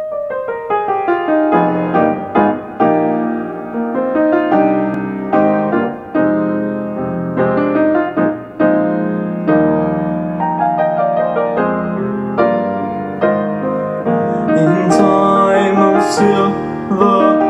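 Piano playing the introduction to a choral song: a gentle, flowing sequence of notes and chords that die away after each is struck, before the choir's voices come in.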